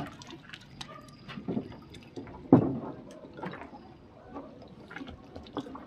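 Water splashing and dripping with scattered small clicks, and one louder knock about two and a half seconds in.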